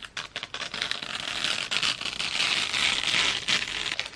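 Crinkling, crackling noise, a dense patter of small clicks over a hiss that swells through the middle.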